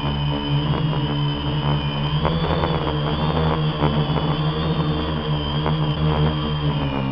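Quadcopter's electric motors and propellers droning steadily, heard close up through the onboard camera's microphone, with a high motor whine that wavers slightly in pitch.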